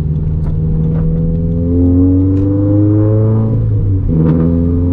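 Turbocharged 2013 Scion FR-S flat-four with a titanium center-exit exhaust accelerating under load, its engine note climbing. About three and a half seconds in the note breaks off briefly for an upshift, then climbs again in the next gear.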